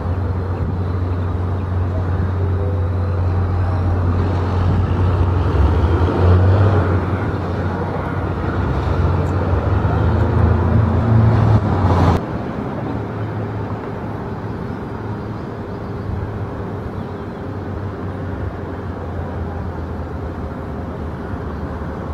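Jet engines of a Boeing 737 airliner rumbling loudly as it rolls along the runway, swelling in level, then cut off abruptly about twelve seconds in. After that comes a quieter, steady airport background rumble.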